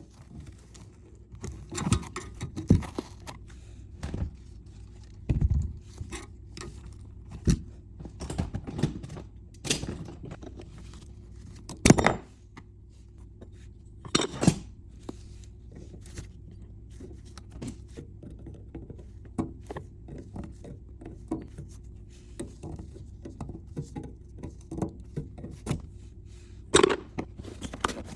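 Irregular knocks, clicks and scrapes of plumbing parts and tools being handled, with a few louder knocks, over a steady low hum.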